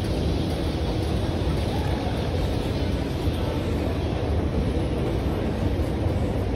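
Escalator running, a steady low rumble from the moving steps.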